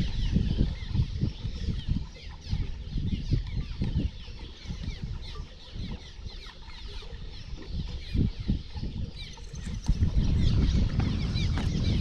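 Many small birds chattering in quick, overlapping chirps, over wind buffeting the microphone in gusts.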